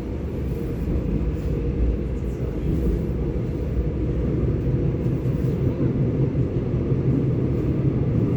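Seoul Subway Line 7 electric train pulling out of the station: a steady low rumble that grows slowly louder as it gets under way.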